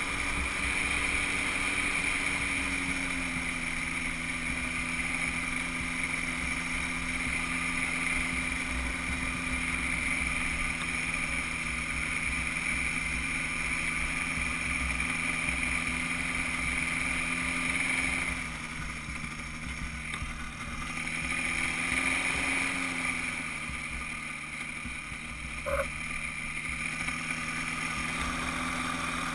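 Weight-shift microlight trike's engine and pusher propeller running at low power while the trike rolls on grass. The engine note eases down a little past halfway, rises briefly, then settles lower, with a single short click near the end.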